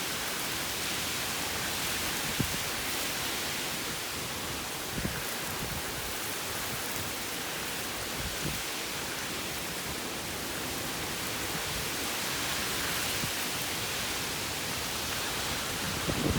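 Steady hiss of heavy rain and wind in a severe storm, with a few faint taps.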